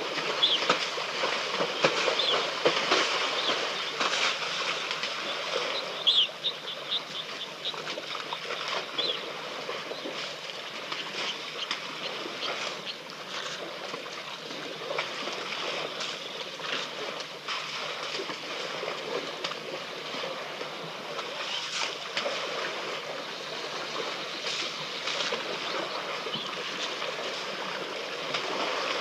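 African elephants wallowing in wet mud at the water's edge: irregular splashing and sloshing of mud and water, busiest in the first few seconds.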